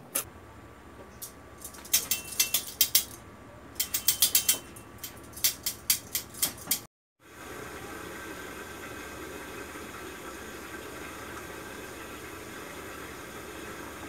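A run of sharp clicks and taps over several seconds. After a brief cut, a steady rushing noise of running water takes over.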